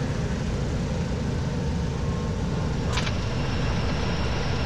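Pitts S-1S biplane's engine running at idle power as the plane rolls out after touchdown, a steady low rumble, with a brief click about three seconds in.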